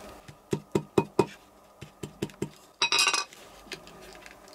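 Shoemaker's hammer beating the edge of a leather shoe upper flat on a stone slab: four sharp knocks, then four lighter ones, and a brief metallic clatter about three seconds in. This hammering flattens the upper's seams and folds; without it, the shoemaker says, shoes chafe the wearer.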